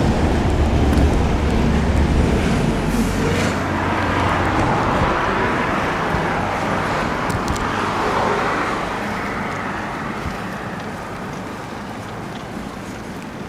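Road traffic passing close by: a heavy engine rumble for the first few seconds, then the rushing tyre noise of passing vehicles that swells in the middle and fades away toward the end.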